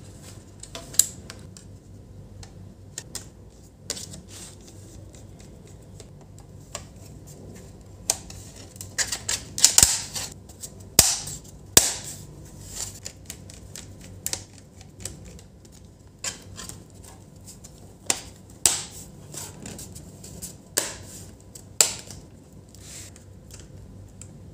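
Sharp plastic clicks and snaps, scattered and irregular and thickest around the middle, as a laptop RAM module is seated and the plastic bottom access cover is pressed shut by hand.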